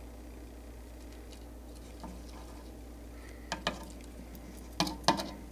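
Small sharp clicks and taps from handling at a tarantula enclosure while a cricket is put in. They come in two pairs, about three and a half seconds in and near the end, over a low steady hum.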